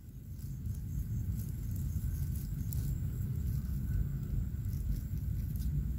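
Low, steady rumble that rises a little over the first second or two, with faint scattered ticks above it.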